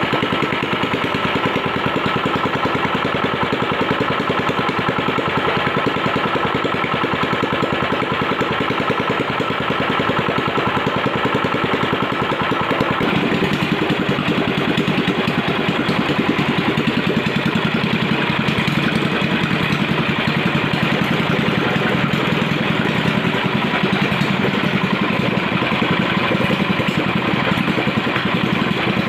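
Single-cylinder 420 cc petrol engine, freshly overhauled with a 0.50 oversize piston, running steadily. About 13 seconds in the engine note changes and becomes deeper and fuller.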